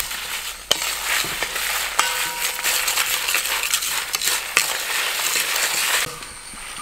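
Spices roasting in a brass uruli, stirred and scraped with a wooden spatula: a dense sizzle and crackle with a few sharp knocks of the spatula on the pan, the coriander seeds starting to pop as the roast nears done. It cuts off near the end, giving way to crickets chirping.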